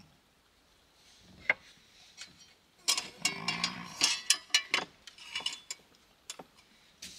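Metal camp gear being handled on a wooden shelf: a single sharp click, then a dense clatter of clinks and knocks for about two seconds, tailing off into a few scattered clicks.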